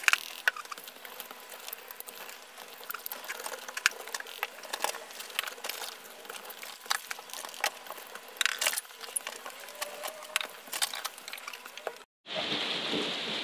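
A pump spray bottle of visor cleaner spritzes onto a motorcycle helmet visor, followed by cloth wiping and handling with scattered rubs, taps and clicks. About twelve seconds in it cuts abruptly to steady rain drumming on a conservatory roof.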